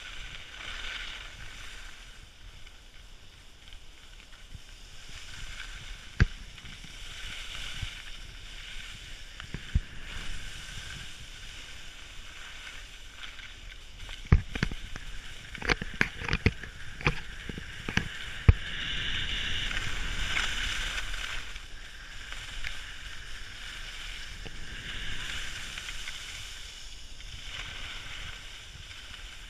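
Skis sliding and scraping over packed snow during a downhill run, a continuous hiss that swells and fades with each turn. A quick cluster of sharp clicks and knocks comes about halfway through.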